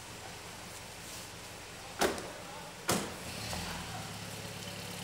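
Two car doors slammed shut, about a second apart, on a taxi, followed by the car's engine running with a low hum.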